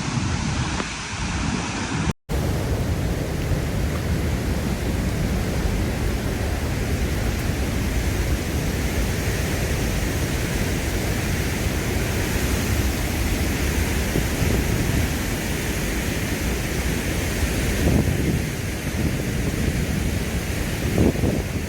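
Steady rushing noise of river water, with wind buffeting the microphone. The sound drops out briefly about two seconds in, at a cut between recordings.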